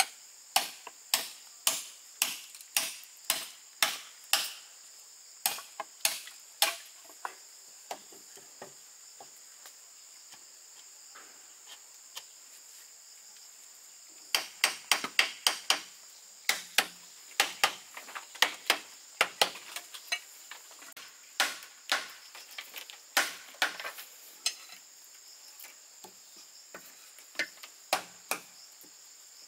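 Sharp tool strikes on bamboo, about two a second at first, then a pause, a quick flurry about halfway through and more spaced blows after. A steady high insect trill runs behind.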